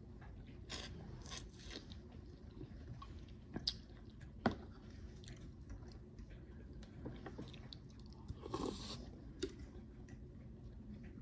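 A person chewing a mouthful of fish close to the microphone, with soft wet mouth sounds and a few sharp clicks, the loudest about halfway through.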